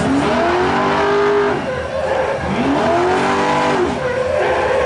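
An engine revving twice, each time rising in pitch, holding for about a second, then dropping away.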